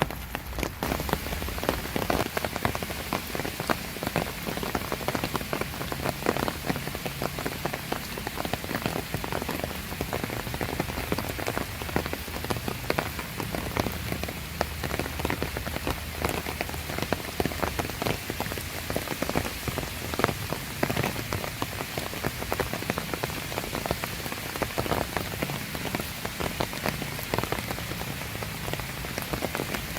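Steady rain falling, with many individual drops striking close by as a constant dense spatter of tiny ticks over an even hiss.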